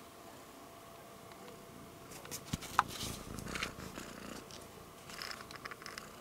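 Domestic cat purring close to the microphone. From about two seconds in come bumps, a sharp click and crackly rubbing of fur and paws against the camera as the cat grabs it.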